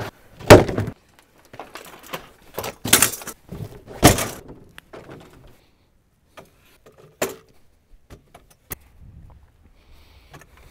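Fishing gear being loaded onto a metal beach cart: a heavy plastic thunk about half a second in as the hard cooler is set down, then knocks and clatter around three and four seconds in as rods and gear are handled, thinning to a few light clicks.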